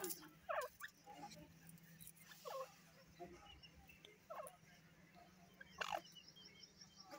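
Hen grey francolin giving about four quiet, short calls a second or two apart.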